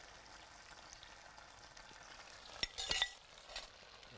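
Sauce sizzling steadily in the pan that the lamb was seared in. A few sharp clinks of a serving utensil come about two and a half to three seconds in.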